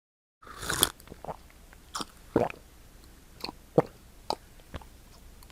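Water being swallowed in a run of gulps, starting about half a second in with a longer wet noise and then short gulps every half second or so.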